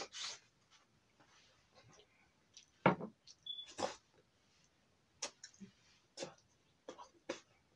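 Chewing and mouth sounds of a person eating close to the microphone: irregular short smacks and clicks, the loudest about three seconds in.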